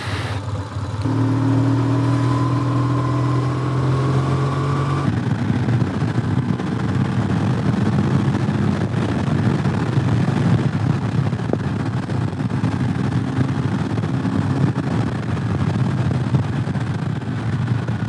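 Motorcycle engine pulling away, its note rising slowly for a few seconds. About five seconds in it changes abruptly to steady running at road speed, with wind rush over the microphone.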